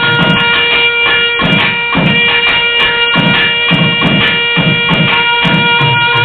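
Nadaswaram playing a melody in raga Anandabhairavi over a steady drone, with tavil drum strokes beating underneath.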